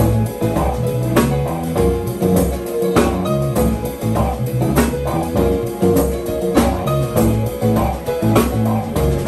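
Live jazz trio playing: electric bass lines and held keyboard chords over a drum kit keeping a steady beat.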